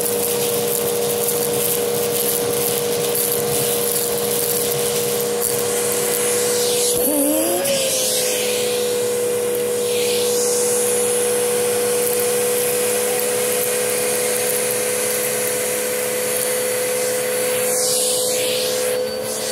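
Vacuum cleaner running steadily with its hose sucking dry egg noodles off carpet, the pieces crackling up the hose. The motor's pitch wavers briefly about seven seconds in, as the nozzle's load changes.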